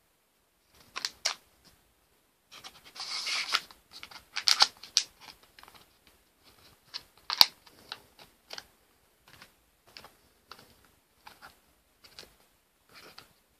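Small cardboard boxes of disposable e-cigarettes being handled and opened by hand: scattered clicks, scrapes and rustles. A longer scraping rustle comes about three seconds in and a sharp click a little past seven seconds.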